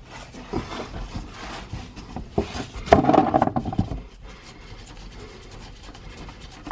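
An Allen key turning the drain plug out of a BMW S85 engine's oil sump by hand: small metallic clicks and scraping, with a louder rasping stretch about three seconds in, then quieter, ending in a sharp click.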